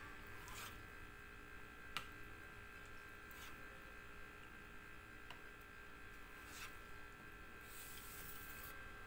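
Kitchen knife slicing a block of tofu on a plastic cutting board: a few faint taps of the blade on the board, the sharpest about two seconds in, and a brief scrape near the end, over a faint steady hum.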